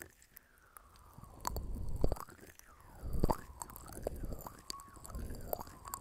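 Close-miked ASMR scratching and rubbing on a microphone, in three swells of rustling with many small sharp clicks and taps.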